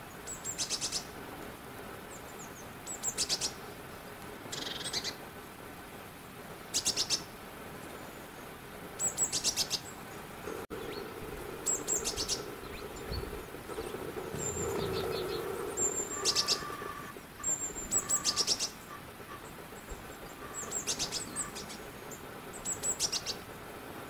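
Small birds calling: short, high-pitched chirping phrases of quick rapid notes, repeated every couple of seconds.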